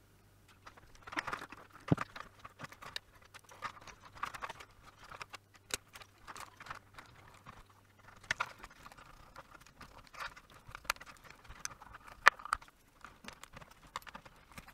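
Irregular small clicks and light knocks as a 3D printer's control board is handled by hand and its wiring connectors are pushed back into their sockets.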